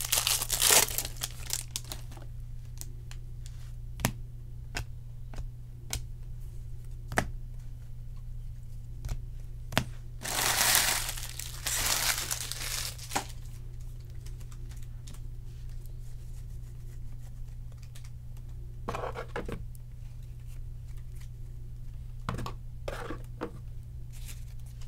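Trading-card pack wrappers crinkling and tearing open in several bursts, the longest about ten seconds in, with light clicks of cards being handled between them. A steady low hum runs underneath.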